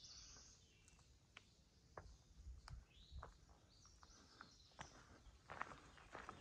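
Faint footsteps of a hiker walking a forest trail, irregular soft steps about every half second, with a few faint bird chirps near the start and midway.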